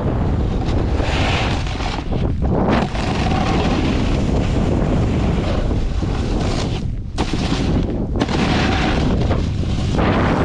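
Wind buffeting the microphone of a snowboarder's action camera during a fast run, over the hiss and scrape of the snowboard's edges carving groomed snow. The scraping hiss drops away briefly about three times, at the changes between turns.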